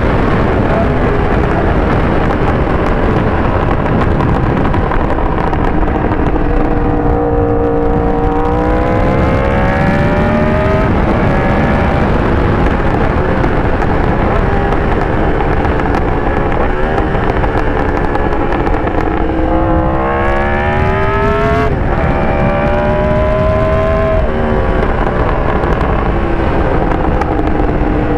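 Yamaha R1 inline-four engine under way, with heavy wind rush over it. The revs climb steadily twice, about eight and twenty seconds in, and fall back each time.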